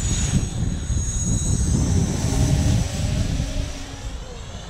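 Quadcopter's electric motors and propellers whining high, the pitch dipping about two seconds in and the sound fading as it climbs away, with wind buffeting the microphone.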